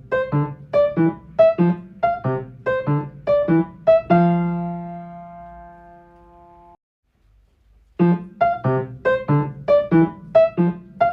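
Piano playing a bouncy, evenly paced pattern of short notes and chords, ending on a held chord about four seconds in that rings out and then cuts off; after about a second of silence the same pattern starts again.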